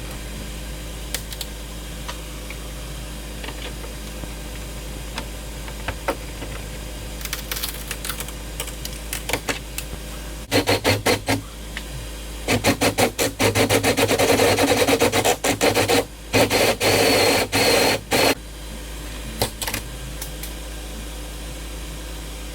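Cordless drill boring into a carbon fiber hood, run in short, rapid trigger bursts for about eight seconds in the middle, with a few faint clicks of handling before it.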